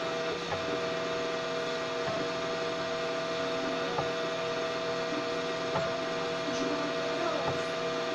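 Homemade 3D printer's stepper motors whining steadily as it prints slowly, the tone breaking briefly with a small tick every couple of seconds.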